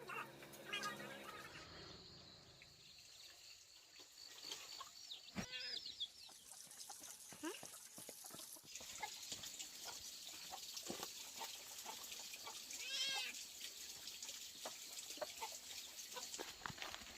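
Outdoor rural ambience: a steady high insect drone with scattered rustling and clicks, and two short bird calls, one about five seconds in and another about thirteen seconds in.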